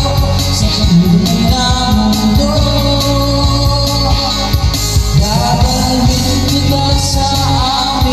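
A man singing into a handheld microphone over loud backing music with a steady beat, in the manner of karaoke.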